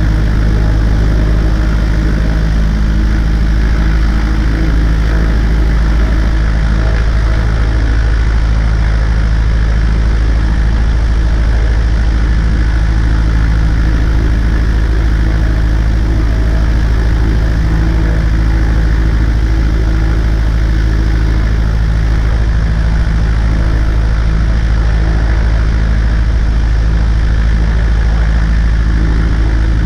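Cessna 140A's light-aircraft piston engine and propeller running at a steady speed, loud and unchanging throughout.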